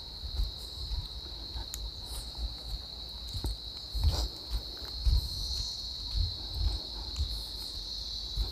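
Insects shrilling in one steady, high-pitched drone, with soft low thumps of footsteps.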